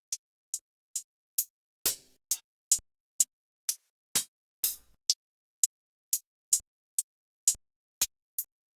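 Trap drum-kit one-shot samples played one after another, about two a second with silence between: mostly short, crisp hi-hat and percussion hits, a few with a longer noisy tail like snares or claps.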